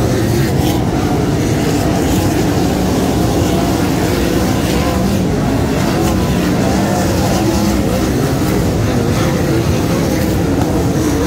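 A pack of sprintcars racing on a dirt oval. Their V8 engines run loud and continuous, and their pitches waver up and down as the cars go by.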